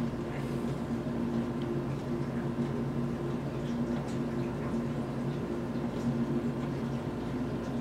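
A steady low machine hum that holds an even pitch throughout.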